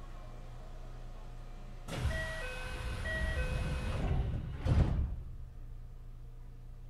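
Kintetsu 9820 series train's sliding doors closing: a two-note door chime sounds twice over the rush of the doors sliding, ending in a thud as they shut. The standing train's steady low hum runs underneath.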